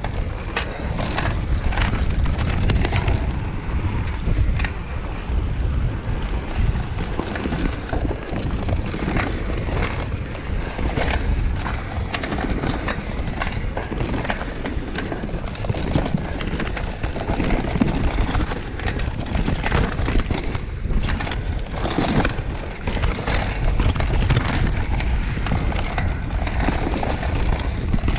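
Mountain bike descending a fast dirt trail: steady low rumble of tyres and wind with frequent clattering knocks from the bike over bumps.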